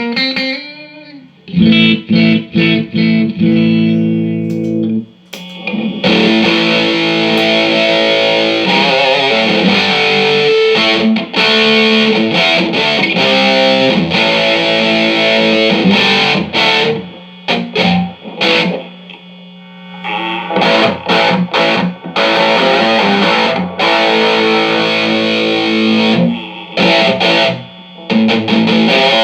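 Electric guitar played through a Mesa Boogie Dual Caliber DC-3 amplifier, tested after a repair. It opens with short chord stabs, then switches to loud, distorted riffing about six seconds in, with a few brief stops.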